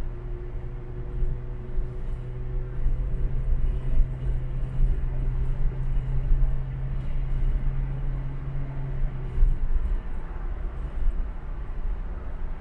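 Road noise of a car driving on a motorway: a steady low rumble of tyres and engine, with a steady hum that stops about nine and a half seconds in.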